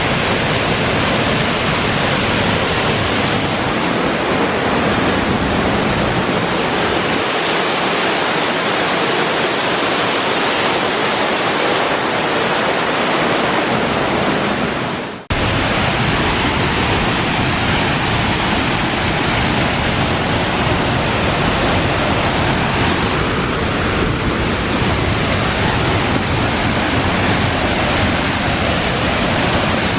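Steady, loud rush of water, as from a waterfall or fast-flowing stream. It dips out for an instant about halfway through and resumes at once.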